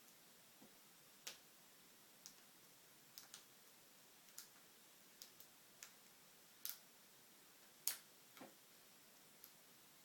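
About a dozen faint, irregular clicks of the pins setting as an American Lock Series 1100 padlock is single-pin picked, one pin at a time from front to back; the loudest click comes about 8 seconds in.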